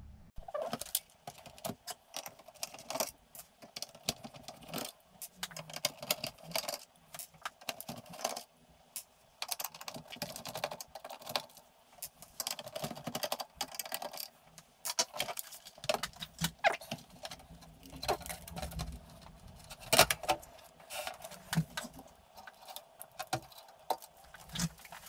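Plastic case of an Amstrad CPC464 home computer being handled and opened: irregular clicks, knocks and rattles of plastic and loose parts, with one sharper knock late on.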